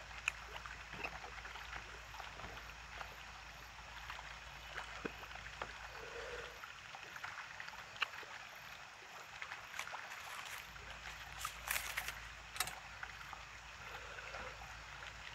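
Eating sounds: wooden chopsticks clicking and scraping against a plastic takeout container, with light chewing, over a steady faint outdoor hiss. The two sharpest clicks come about twelve seconds in.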